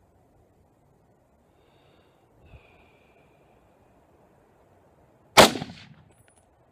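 A single rifle shot from a 1944 Springfield Armory M1 Garand in .30-06, about five seconds in, with a short ringing tail.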